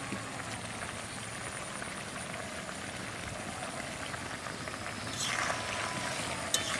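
Papaya curry bubbling at a boil in a large aluminium pot: a steady hiss with small pops. About five seconds in, a spatula stirs through the curry with a brief louder swish.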